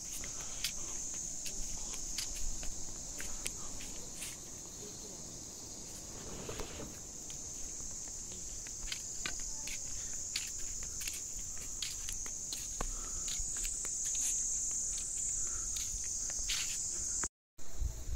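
A steady, high-pitched chorus of insects, with scattered light taps and scrapes over it. The sound cuts out briefly near the end.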